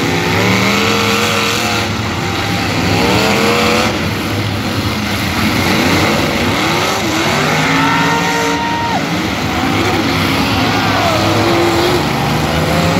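Several demolition derby cars' engines revving hard at once. Their pitches rise and fall over one another as the cars accelerate, back up and push into each other.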